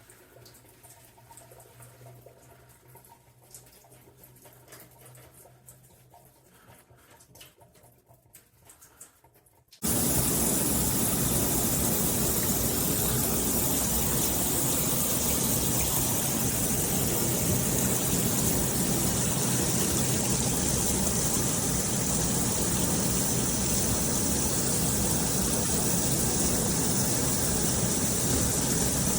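Faint small clicks, then about ten seconds in water comes on suddenly and sprays steadily from a rainfall shower head.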